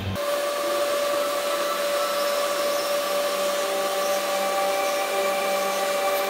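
Hot air rework station blowing steadily over a hashboard's PCI-E 6-pin connector pins, heating low-temp solder so the burnt connector can be desoldered. An even rush of air with a faint steady whine.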